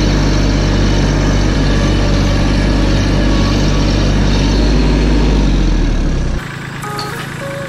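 Compact farm tractor's engine running steadily, heard from the driver's seat while driving. About six seconds in it cuts off abruptly and quieter light music with a simple tune takes over.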